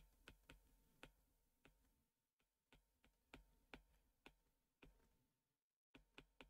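Near silence broken by about a dozen faint, irregular clicks of a stylus tapping on a tablet screen as digits are handwritten.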